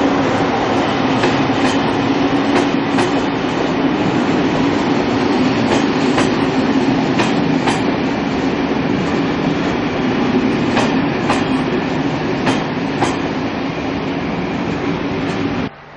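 SNCF Corail passenger coaches rolling past, a steady rumble of wheels on rail with paired clicks as each bogie's wheelsets cross rail joints. The sound cuts off suddenly near the end.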